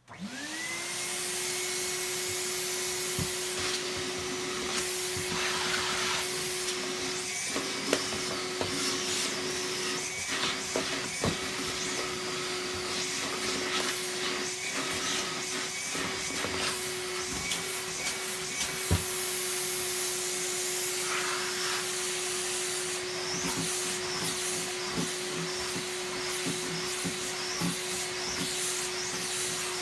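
Numatic Hetty cylinder vacuum cleaner switched on, its motor spinning up within a second to a steady whine and then running while the hose sucks dirt out of a vacuum. The pitch dips briefly now and then as the nozzle is worked, with a few sharp knocks of the tool, the loudest about 8 and 19 seconds in.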